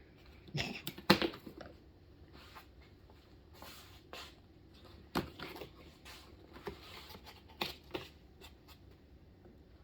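A case being unlatched and opened by hand: a series of sharp clicks and knocks, the loudest about a second in, with light rustling of packing between them.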